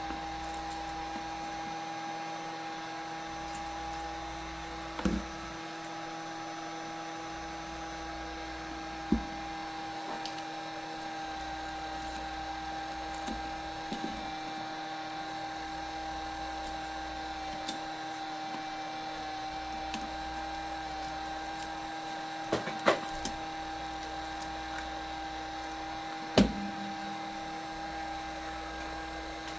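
Scattered sharp clicks and snaps, about half a dozen, as broken tablet screen glass is pried away, the loudest a little past the middle and near the end, over a steady electrical hum.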